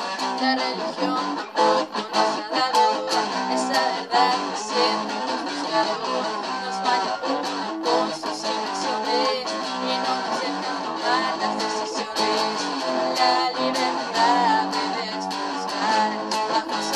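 Electric guitar played with a mix of strummed chords and picked notes, without a steady bass underneath.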